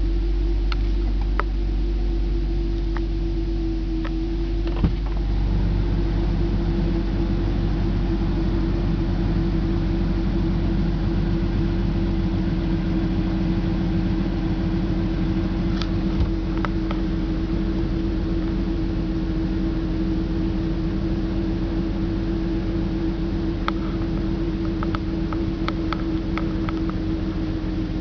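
BMW M54 straight-six idling just after a cold start, with a steady hum over the engine note and a few light ticks near the end. This is the cold idle at which the owner logs misfires in cylinders 3 and 5, and sometimes 4.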